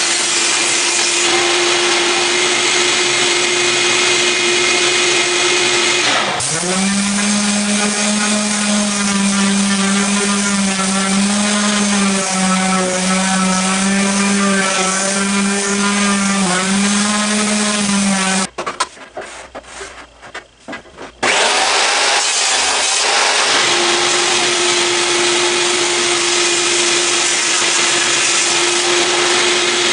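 Power saw running and cutting white oak into a strip. About six seconds in its pitch drops and holds low with a wavering tone while the blade is in the cut. Later the sound drops away for about three seconds, then the saw runs on.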